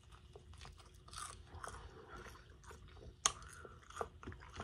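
A person chewing and biting into a sauced chicken wing close to the microphone, with small wet crackles and clicks. The sharpest click comes a little past three seconds in.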